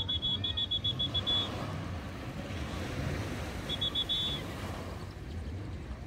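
Small waves washing onto a sandy beach, with wind buffeting the microphone. A rapid run of short, evenly spaced high pips sounds through the first second and a half, and a shorter run comes about four seconds in.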